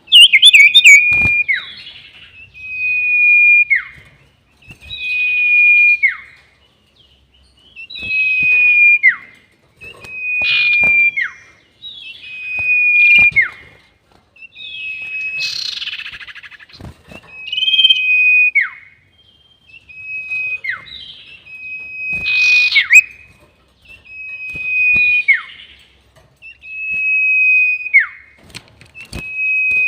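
Sirtu bird whistling its long call over and over, about every two seconds: a steady high whistle held for about a second, ending in a quick downward slur. Sharp clicks sound between some of the calls.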